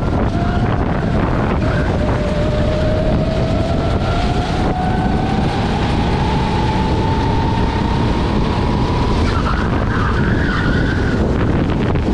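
Onboard sound of a rental racing kart's engine, its pitch climbing steadily as the kart accelerates down a straight, then easing off about nine seconds in as the driver lifts for the next corner. Heavy wind and road noise run underneath.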